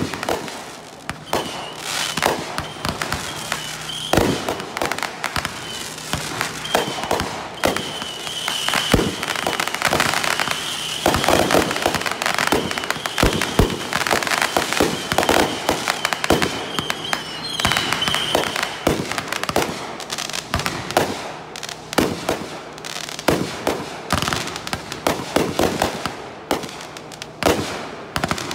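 Aerial fireworks going off in a continuous barrage: dense, overlapping bangs and bursts with no pause, at times several a second.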